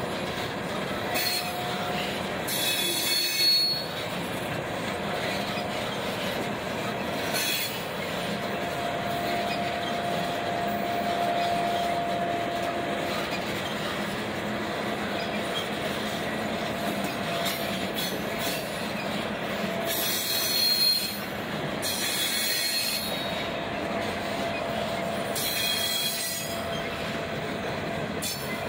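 A train of empty Norfolk Southern coal hopper cars rolling past, a steady rumble with a faint ongoing whine. Short bursts of high-pitched wheel squeal come about four times, the loudest near the start and about two-thirds of the way through.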